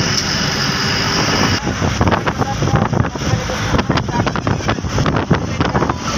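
Moving passenger bus, heard from inside: steady engine and road noise. From about a second and a half in, wind buffets the microphone at the open side window.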